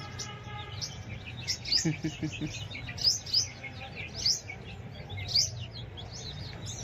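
A small bird chirping repeatedly: short, high, sharp notes that come every half second to a second.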